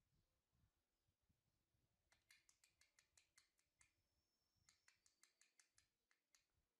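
Near silence, with two faint runs of quick, sharp clicks at about six a second, one starting about two seconds in and one nearer the end.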